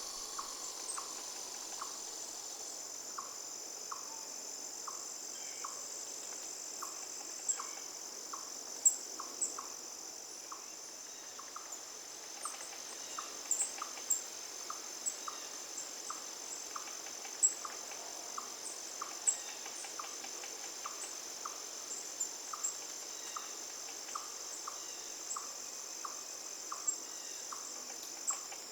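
Steady high-pitched insect chorus of crickets trilling. Under it runs a regular lower tick a little more often than once a second, with scattered short, sharp high chirps.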